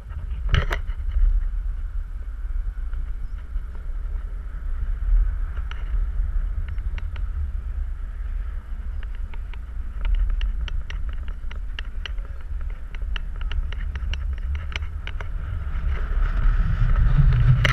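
Wind buffeting a camera microphone swinging through the air on a giant stadium swing, a steady low rumble. A run of light clicks comes through from about ten seconds in.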